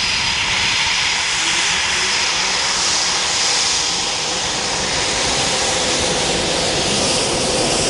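Eurofighter Typhoon's twin Eurojet EJ200 turbofans running at taxi power as the jet taxis past: a loud, steady jet whine and hiss with a high, thin whistle held throughout.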